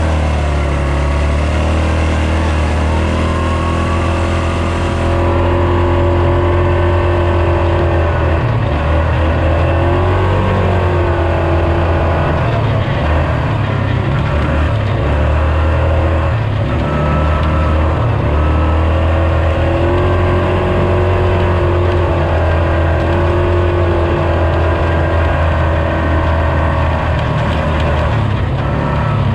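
Yamaha ATV's single-cylinder four-stroke engine running under way on a snowy trail, its pitch rising and falling with the throttle.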